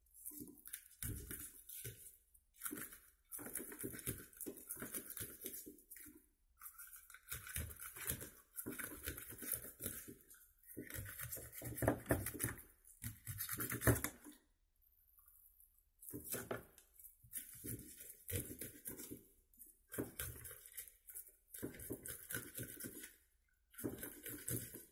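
A knife blade scraping and slicing under a carp's scales, in quick repeated strokes grouped in runs with short pauses. The blade cuts through the scale pockets so the scales come away together in one sheet instead of flying off.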